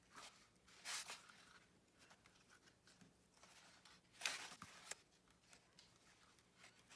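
Faint rustling of cardstock as a frame's corners are pressed together, with a brief louder rustle about a second in and again about four seconds in.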